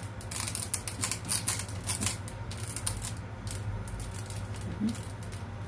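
Cooking oil poured from a plastic bottle into a nonstick frying pan, with quick irregular ticks and crackles for the first three seconds or so, over a steady low hum.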